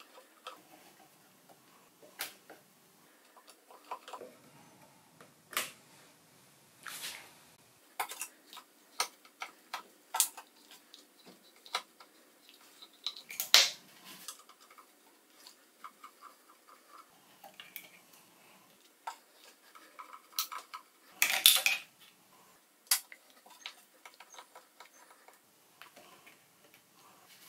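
A screwdriver working small steel screws out of a lathe's chuck guard switch and its conduit: scattered metal clicks and short scrapes, with a louder rattle of metal parts about three quarters of the way through.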